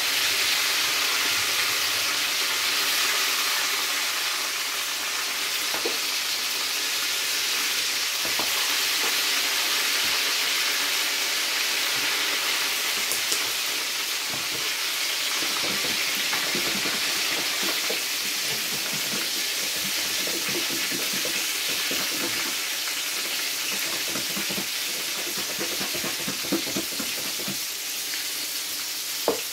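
Flour-coated fish pieces shallow-frying in hot oil: a steady sizzle with a few small pops and crackles.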